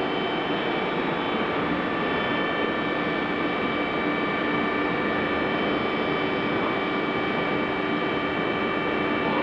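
Steady machine drone with several constant humming tones over an even rushing noise, unchanging throughout.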